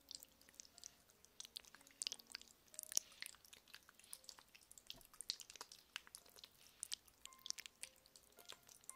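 Fast, crisp scratching and light tapping close on a sensitive microphone in ASMR 'ear massage' style: a dense, irregular stream of small sharp clicks and crackles.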